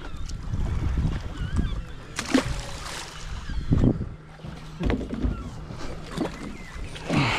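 Small boat drifting in wind and chop with steady low wind rumble on the microphone, while birds over a striped bass blitz give short high calls. Several sudden rushes of noise cut through, the loudest near the end.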